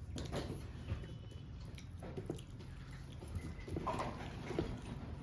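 Quiet eating and serving sounds: scattered light clicks and taps of a utensil and hand on a plate while rice is served and mixed. A brief faint higher sound comes about four seconds in.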